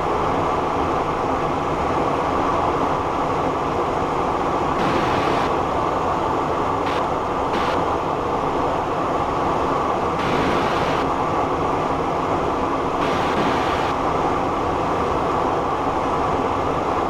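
Steady in-flight cockpit noise of a Cessna Citation Encore business jet: an even rush of airflow and engine hum, with a few brief patches of brighter hiss.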